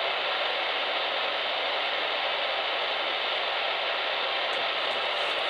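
FM radio static filling a dropout in a relayed broadcast: a steady, even hiss where the alert's voice has cut out. The uploader wonders whether it comes from a lightning strike on the relayed station's transmitter or studio.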